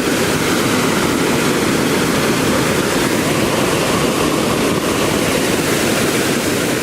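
Steady, loud rushing noise with no pitched tone or distinct hits.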